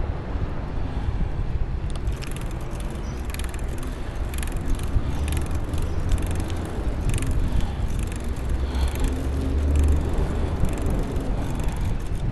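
Sun EZ-1 recumbent bicycle rolling over rough asphalt: a steady low rumble of wind and road noise, with frequent small clicks and rattles from the bike.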